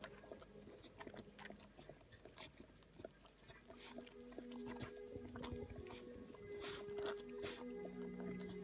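Cocker spaniel licking and mouthing a newborn puppy: irregular wet clicks and chewing sounds. Soft music with held notes fades in about halfway through.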